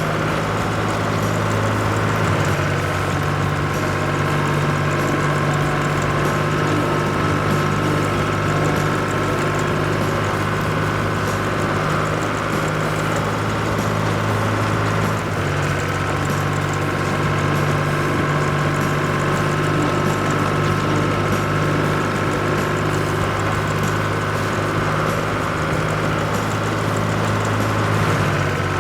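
A cartoon farm vehicle's engine running steadily, a low droning hum that shifts slightly in pitch about two seconds in and again about halfway through.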